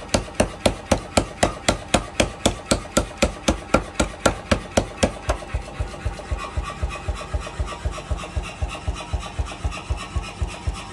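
Power hammer pounding a red-hot steel blade on its anvil in a steady rhythm, about four to five blows a second. About halfway through the blows turn lighter and duller while the rhythm keeps going.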